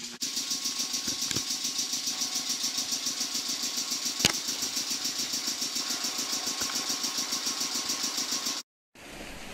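Air compressor of a stationary Choshi Electric Railway electric train running with a steady, rapid chugging of about seven beats a second, cut off suddenly near the end. There is one sharp click about four seconds in.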